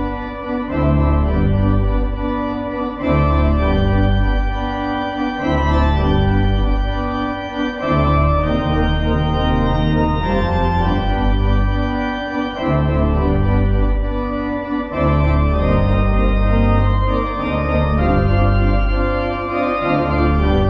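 Church organ playing the closing postlude: full sustained chords over a bass line that moves to a new note every second or two, in phrases with short breaks between them.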